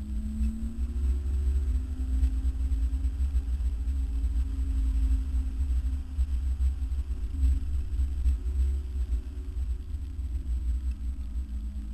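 Car engine heard from inside the cabin while the car is driven on a track. Its note rises about a second in as the car accelerates, holds steady, then eases off near the end, over a heavy low rumble.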